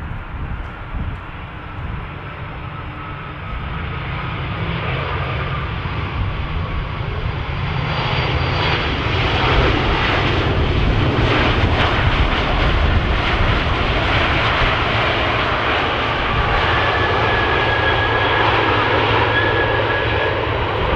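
The General Electric CF6-80C2 turbofans of an Airbus A300-600ST Beluga running during its landing roll. The jet roar grows louder as the aircraft passes close, then holds. A high whine drifts down in pitch in the first few seconds, and a steady whine comes in near the end.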